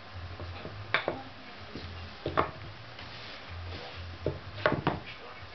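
Wooden pegs knocking against a round wooden dog puzzle board as they are set into and nudged about in its holes: a sharp knock about a second in, another a little before halfway, and a quick cluster of clacks near the end.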